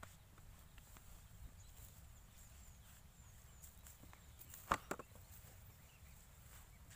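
Quiet open-field ambience with a low rumble and a few faint high chirps, broken just past the middle by two sharp knocks about a quarter second apart as a bucket is handled at the ground.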